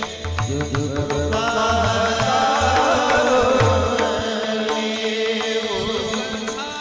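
Devotional singing: a voice draws out long, ornamented notes over a steady drone, with hand-drum strokes underneath.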